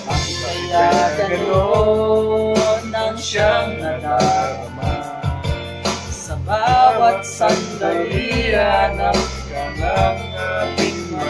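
A man singing into a microphone over a backing track with guitar.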